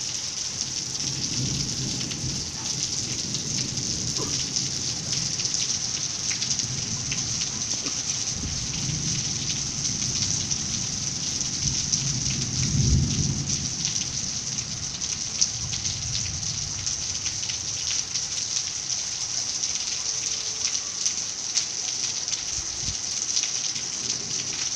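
A steady high-pitched hiss full of fine crackling, with low rumbling swells that rise and fade every few seconds.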